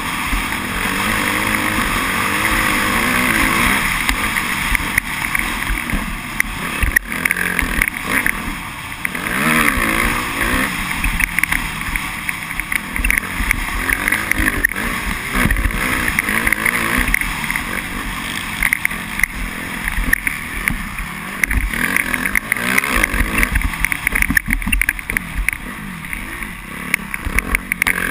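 Suzuki RM-Z250 motocross bike's 250cc four-stroke single-cylinder engine under way, heard close up from the bike. The revs rise and fall again and again with throttle and gear changes.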